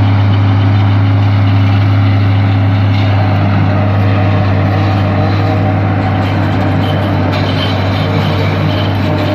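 John Deere 4430 tractor's six-cylinder diesel running steadily under load, driving a John Deere 3950 forage harvester chopping corn silage: a loud, even engine drone with the harvester's machinery noise over it.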